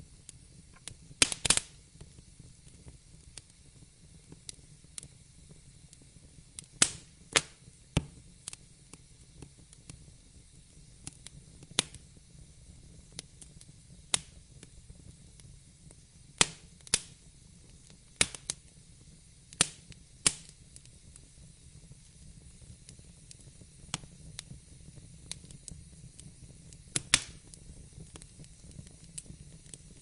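Fire crackling: sharp pops at irregular intervals, often two or three close together, over a faint low rumble of the flames. The loudest pops come about a second and a half in and near the end.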